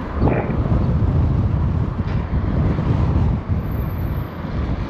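Low rumble of a Škoda Rapid car on the move, with wind buffeting the microphone; it swells about a quarter second in and dips briefly twice towards the end.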